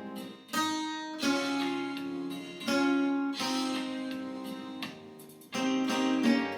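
Brazilian viola caipira playing a slow hymn tune, with plucked chords and melody notes left to ring. The sound fades about five seconds in before a fresh chord is struck.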